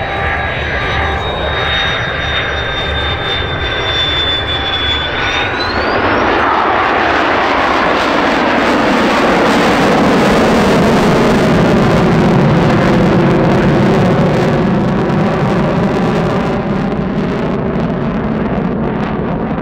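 Danish F-16 Fighting Falcon's Pratt & Whitney F100 turbofan in afterburner during a display pass. A high engine whine sweeps sharply upward about five seconds in, then gives way to a loud jet roar that builds and holds, with a falling sweep in its tone as the jet goes past.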